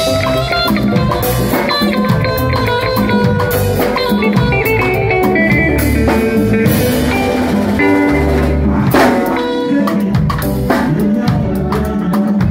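Electric guitar playing lead lines over a drum kit in a live band.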